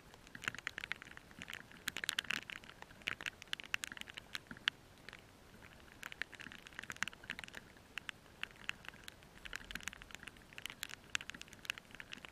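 Rain pattering close to the microphone: irregular drops ticking sharply, coming in spells with quieter gaps about five seconds in and again past eight seconds.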